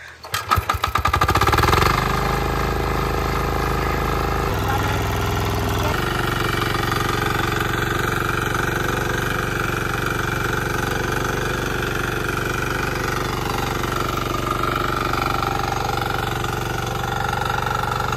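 Single-cylinder engine of a walk-behind power tiller started by hand: quick firing pulses speed up over the first two seconds, then it settles into steady running as the tiller churns the field soil.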